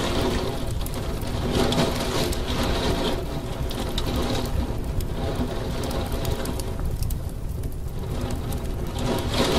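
Heavy rain beating against a window, a dense steady wash of rainfall with individual drops ticking sharply on the glass.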